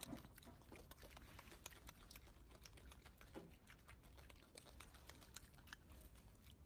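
Faint, irregular small clicks and ticks of a golden snub-nosed monkey handling and eating a peeled mandarin orange, over near silence.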